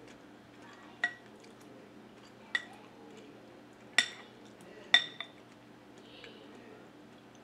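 Metal spoon clinking against a glass soup bowl while scooping: about five short, ringing clinks a second or so apart, the loudest two past the middle, the last a light tap right after the fourth.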